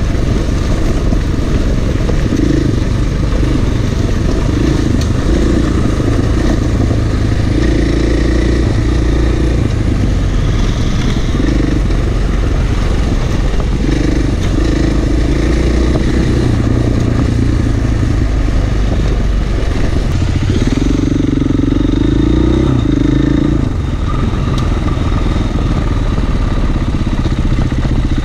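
Off-road motorcycle engine running under way, its revs repeatedly rising and falling as the throttle is opened and closed, with a stronger burst of throttle about three-quarters of the way through.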